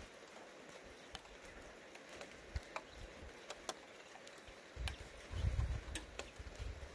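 Outdoor ambience under a weak thunderstorm: faint scattered sharp ticks, and about five seconds in a low, uneven rumble sets in.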